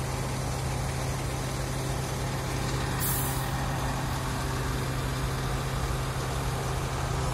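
Truck crane's diesel engine running steadily while hoisting a load, with a short hiss about three seconds in.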